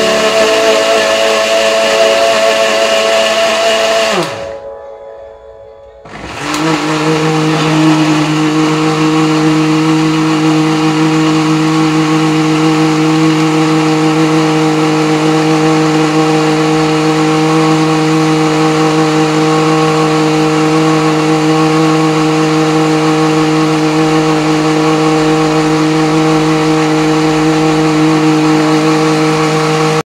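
Electric countertop blender with a glass jar running, blending oranges into juice. About four seconds in it is switched off and its pitch falls as it winds down; a couple of seconds later it is switched on again and runs steadily.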